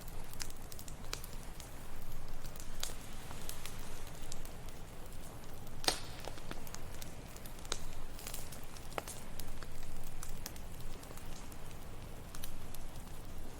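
Wood campfire crackling, with irregular sharp pops and snaps, the loudest about six seconds in, over a steady low wash of ocean waves.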